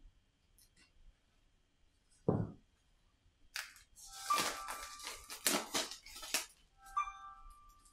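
Plastic shrink-wrap crinkling and tearing for about three seconds as it is pulled off game boards, after a dull thump a little over two seconds in. A short ringing, chime-like tone sounds near the end.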